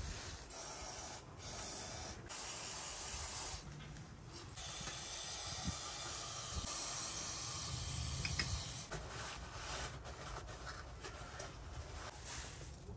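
Aerosol cleaner spray hissing in several short bursts, then one longer spray of about four seconds.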